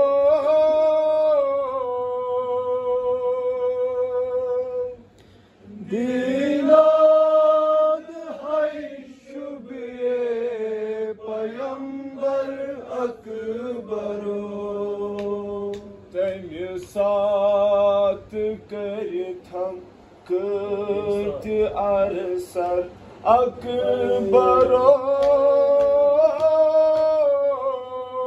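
A man singing a Kashmiri noha, a Shia lament, with no instruments: long held notes with a wavering vibrato, broken by a short pause about five seconds in.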